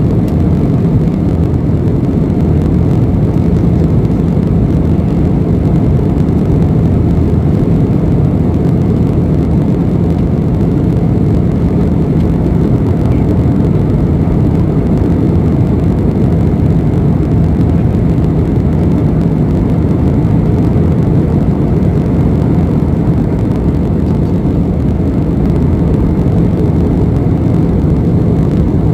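Airliner cabin noise in flight: a steady, low, even drone of engines and rushing air, heard from inside the cabin.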